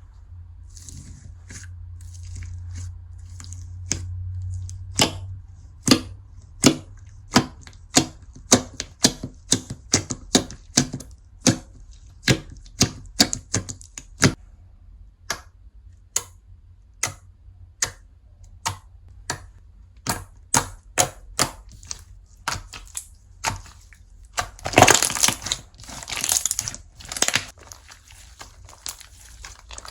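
Slime being pressed and squished by hand, making sharp popping clicks about one to two a second. Near the end comes a louder stretch of crackling crunch lasting a few seconds.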